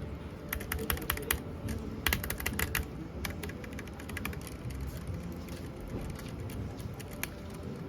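Typing on a Keychron K3 low-profile mechanical keyboard with optical red linear switches: quick runs of light key clicks, busiest in the first three seconds, then sparser keystrokes.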